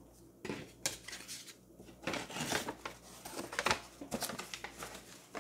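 Handling noise as small items are put away and picked up: irregular rustling and crinkling, like paper or packaging, with light clicks and knocks.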